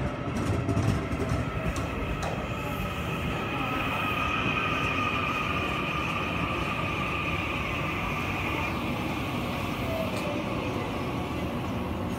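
Taiwan Railway electric train moving through the station, a steady rumble with a sustained high-pitched tone over it that fades out near the end.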